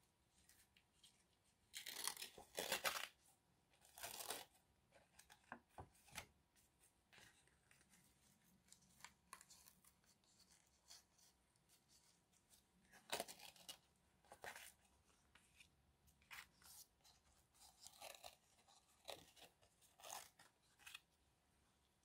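Faint, irregular rustling and scraping of a paper card and crinkle seam binding ribbon being pulled through punched holes and handled, with a few louder rasps about two seconds in and again around the middle.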